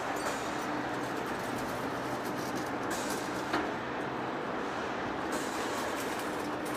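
Heavy-duty face lathe running, a steady mechanical rumble with a faint low hum, and one sharp click about three and a half seconds in.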